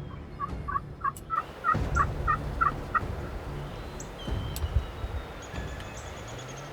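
Turkey yelping: a series of about eight evenly spaced calls over two and a half seconds, rising slightly in pitch.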